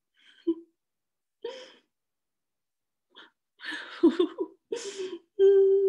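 A woman making small wordless vocal sounds to voice a shy puppet: a few short, breathy sounds, busier after about three and a half seconds, then a steady held hum near the end.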